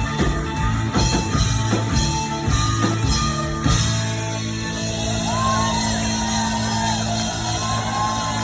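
Live rock band playing, with hard drum hits until about halfway, then a held chord ringing out while the crowd whoops and shouts.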